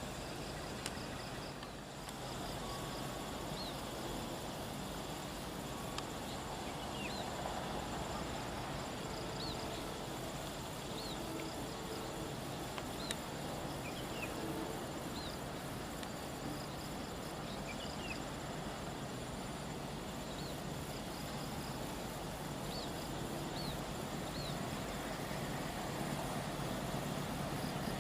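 Outdoor ambience: a steady rushing background with repeated short, high chirps and a thin, steady high insect-like whine; a low rumble swells slightly near the end.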